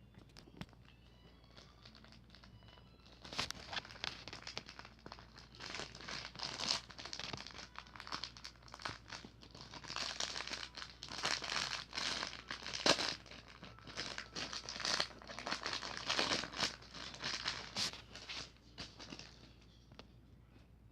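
Packaging being handled and crumpled during an unboxing: a dense, irregular crinkling with sharp crackles that starts about three seconds in and dies away near the end.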